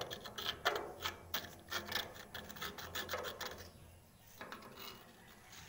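Metal tool scraping at packed old grease in a concrete mixer's bearing housing, clearing it to get at the worn bearing: a quick run of short scraping strokes that dies down about three and a half seconds in.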